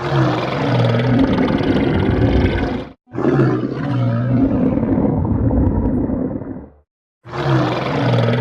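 Stomach growling: long, low rumbling growls in stretches of about three seconds. Each stretch stops dead, with a short silence before the next begins, once about three seconds in and again about seven seconds in.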